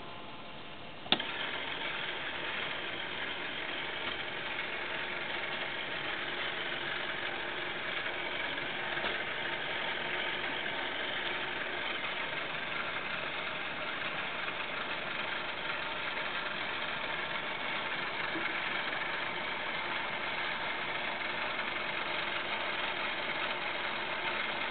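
Small electric motor of a model mine's winding gear whirring steadily as it raises the cage with mine cars up the shaft, switched on with a click about a second in.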